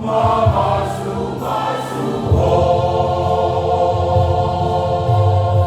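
Church choir singing in harmony, moving to a new chord about two seconds in and holding it.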